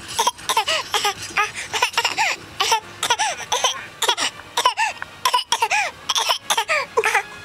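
Several people coughing and laughing hard together, with many short high-pitched rising-and-falling whoops, several a second, between noisy coughs.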